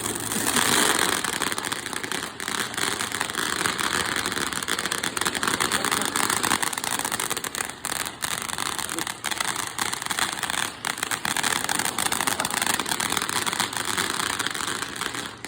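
Firework burning with a steady hiss and dense rapid crackle, cutting off suddenly near the end.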